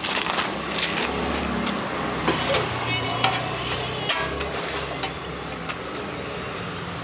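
Busy street background with a low vehicle engine hum and a few faint voices. Over it come a few sharp clinks of steel utensils as a ladle dips into a steel pot.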